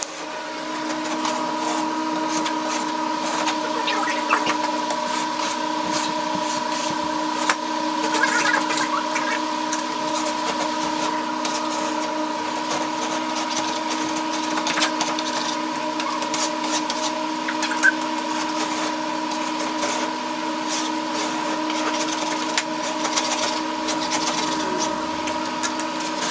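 Wide drywall scraper rasping wet popcorn texture off a ceiling, with crumbly debris pattering down and a few sharper ticks, over a steady mechanical hum.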